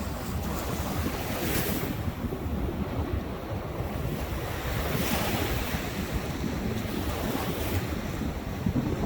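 Ocean surf washing ashore, the hiss swelling three times, with wind rumbling on the microphone.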